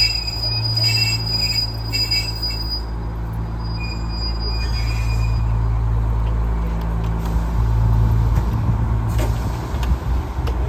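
HPC 402 diesel railmotor running alongside the platform, a steady low engine hum, with a thin high-pitched whine over it for the first four seconds or so.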